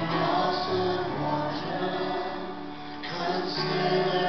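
Church worship band performing a hymn: men and women singing together over keyboard accompaniment, with sustained notes and a steady bass line.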